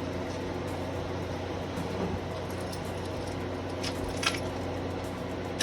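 A steady low mechanical hum with a couple of light metallic clicks about four seconds in.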